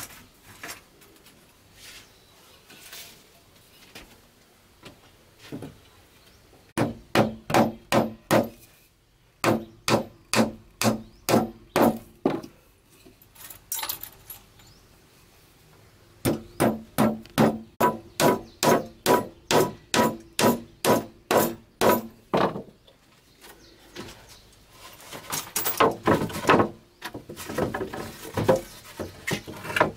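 A hammer nailing wooden planks onto a frame: runs of sharp, ringing blows at about three a second, with short pauses between the runs. Near the end, boards knock and clatter irregularly as they are handled and set in place.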